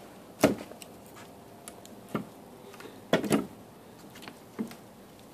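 A dead branch knocking against wooden deck boards as it is handled and bent to break it: a handful of sharp wooden knocks at uneven intervals, with quiet between.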